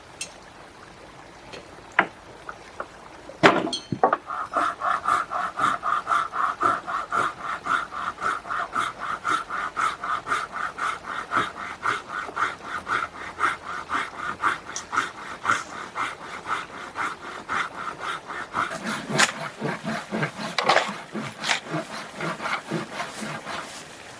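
Hand saw cutting through wood in steady back-and-forth strokes, about two to three a second, starting after a knock about three seconds in.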